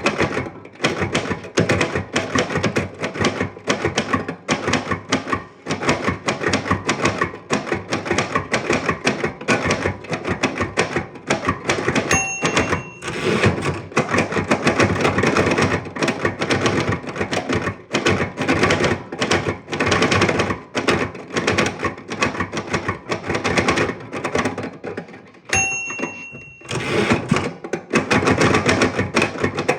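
Manual typewriter being typed on: fast, uneven clatter of keys and typebars striking. Twice, about twelve seconds in and near the end, a short ring, the margin bell at the end of a line, and the clatter breaks off briefly before going on.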